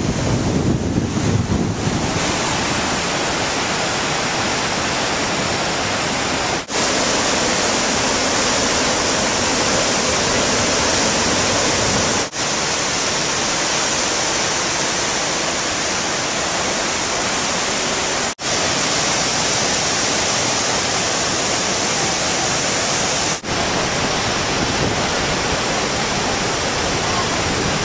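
Steady rushing of whitewater as the Merced River pours over the brink of Vernal Fall in heavy flow. Wind rumbles on the microphone for the first two seconds, and the sound drops out for an instant four times.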